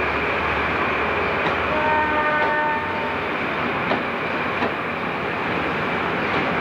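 Train at a station, its horn sounding once for about a second, about two seconds in, over steady rail and hiss noise. A couple of sharp clanks follow about two seconds later.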